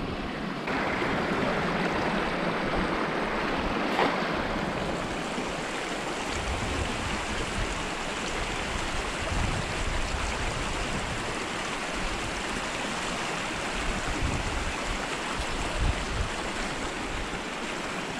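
Small shallow river rushing over rocks in a steady, even rush, which comes in abruptly just under a second in. A single short sharp knock sounds about four seconds in.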